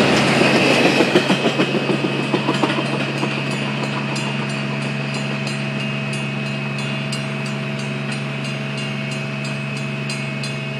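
Double-stack intermodal freight train rolling past, its wheels clacking over rail joints as the last cars go by, then the rumble fading as the train moves away. A steady low hum stays under it throughout.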